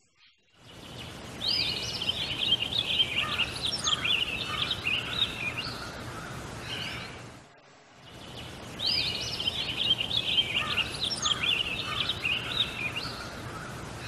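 A bulbul chirping in quick runs of short rising and falling calls, in two bouts with a brief break about halfway, over a steady low hum.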